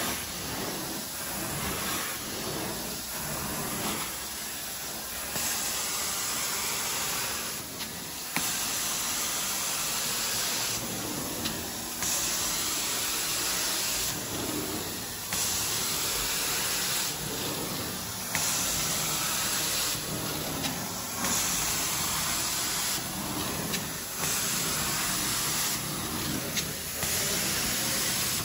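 Hot-water carpet extraction wand working the carpet. It makes a steady sucking hiss of water and air being pulled through the wand. The hiss turns louder and sharper in stretches of a second or two, with short dips between them, as the strokes go back and forth.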